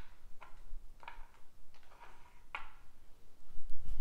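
About five faint, short clicks, irregularly spaced half a second to a second apart: dice being handled and set in the hand before a throw.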